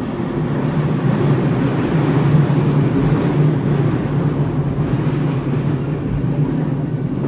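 Commuter train running, heard from inside the passenger car: a steady rumble with a low hum that swells a little a couple of seconds in, then eases slightly.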